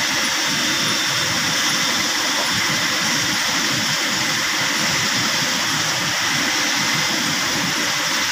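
Fast-flowing river rushing over rocks, a steady unbroken noise.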